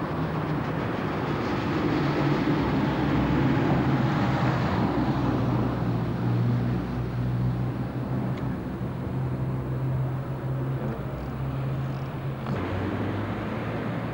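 Street traffic: a vehicle engine humming steadily, with a passing vehicle's noise swelling to its loudest about three to four seconds in and then fading. The hum changes abruptly near the end.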